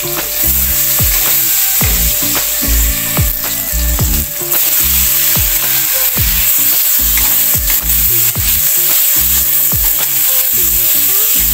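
Wood ear mushrooms sizzling as they fry in hot oil in a pan while being stirred, a steady loud sizzle. Background music with a regular beat plays underneath.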